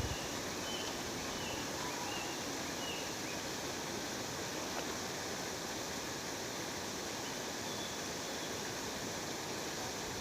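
Waterfall rushing steadily, with a few faint, short bird chirps in the first few seconds and once more near the end.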